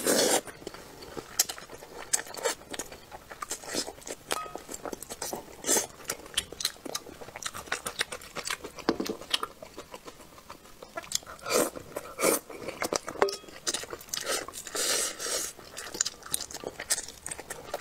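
Close-miked eating of braised bullfrog pieces in spicy sauce: many quick wet mouth clicks and chewing smacks, with longer sucking slurps right at the start and about fifteen seconds in.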